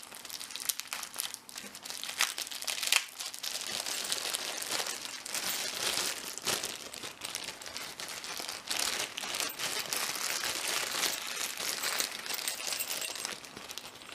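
Packaging being unwrapped by hand, crinkling and rustling without a break, with many sharp crackles.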